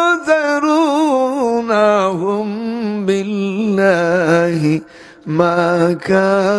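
A man chanting into a microphone in long, ornamented held notes with a wavering pitch. He pauses for a breath about five seconds in.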